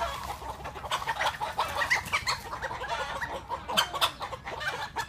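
Several chickens clucking, a dense run of short calls one after another.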